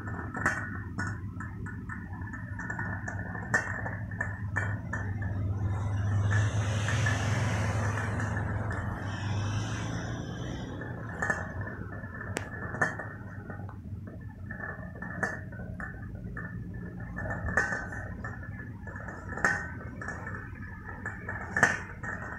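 Panasonic electric rice cooker cooking at the boil: irregular ticking and bubbling under the closed lid over a steady low hum, with a hiss of steam swelling about six seconds in and fading a few seconds later.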